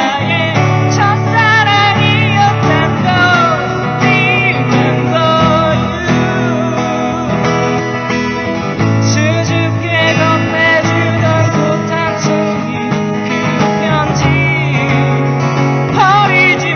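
A live cover of a Korean rock ballad: strummed acoustic guitar under a sung melody that wavers and bends in pitch.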